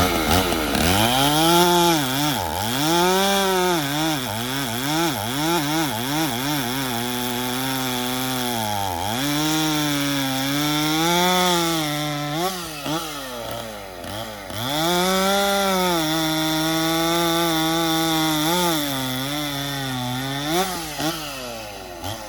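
A Stihl 044 70cc two-stroke chainsaw running at high revs and cutting through wood. Its pitch dips and recovers again and again as it loads up in the cut, with steadier stretches in between. The chain is now set right, and the saw pulls through the cut a lot better.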